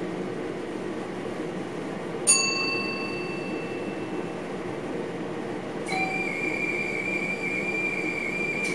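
Steady running noise in a train's driver's cab. About two seconds in there is a single metallic ding that rings away. Near six seconds a steady high warning tone starts, sounds for about three seconds, then cuts off with a click, as when a cab signalling alert is acknowledged.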